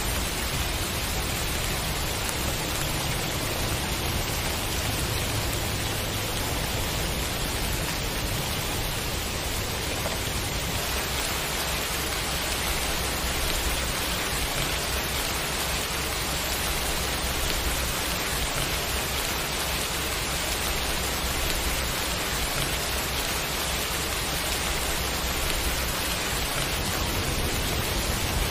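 Steady, even rain falling, a constant hiss of drops on surfaces.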